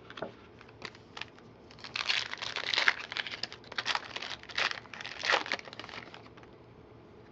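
A pack of 2011 Score football cards being torn open. After a few light clicks, the wrapper crinkles and rustles in a quick string of bursts for about four seconds.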